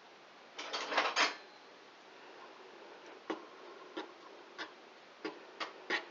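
A metal teaspoon stirring hot cream into grated dark chocolate in a bowl to melt it for a glaze, clinking against the bowl. A quick cluster of clatters comes about a second in, then single light clinks about every half second.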